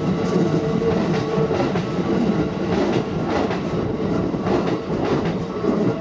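Keikyu new 1000 series electric commuter train passing at close range over a level crossing, its wheels clattering over the rail joints and crossing, until the last car clears near the end.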